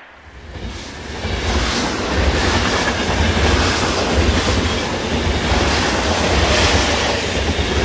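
Steady rumbling, rushing noise that builds over the first two seconds and then holds.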